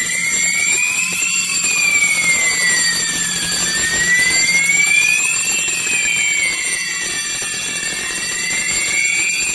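Electronic fire alarm sounder going off, its tone rising and falling slowly, about one full sweep every four seconds, over steady high-pitched tones and a low hum. It is the alarm set off by the beam smoke detector when its beam is blocked by simulated smoke.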